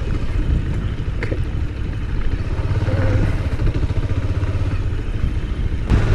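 Motorcycle engine running at low speed while the bike rides over a rough dirt road, with a sharp knock near the end.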